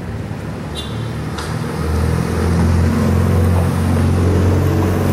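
Motor vehicle engine running with a low, steady hum that grows louder about two seconds in.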